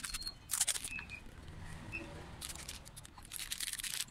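Paper, card and plastic candy wrappers crinkling and rustling as hands handle a handmade gift box. There is one short burst about half a second in, and a longer spell of rustling from about two and a half seconds until shortly before the end.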